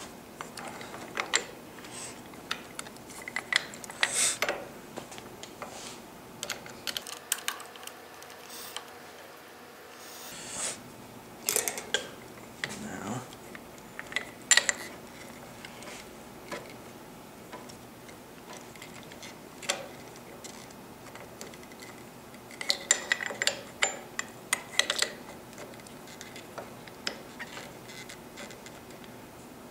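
Scattered small clicks and knocks of plastic and metal parts being handled: a Harley-Davidson handlebar switch housing being fitted and shifted into position around the front brake master cylinder, with a quick flurry of clicks a little over twenty seconds in.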